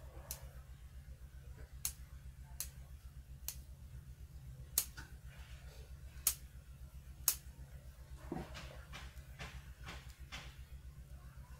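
Pruning scissors snipping bonsai twigs: about seven sharp snips, a second or so apart, over the first seven seconds. Softer rustling of branches being handled follows, over a steady low hum.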